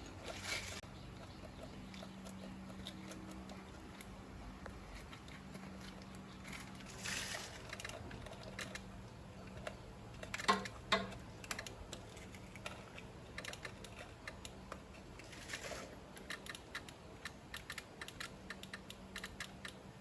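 Faint, irregular light clicks and taps of hand work on small metal parts, with two louder knocks about ten and a half seconds in and a few short scraping sounds.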